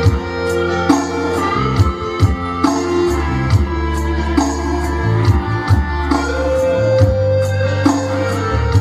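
Technics electronic keyboard playing instrumental music: sustained chords and a melody over a bass line and a steady built-in drum beat.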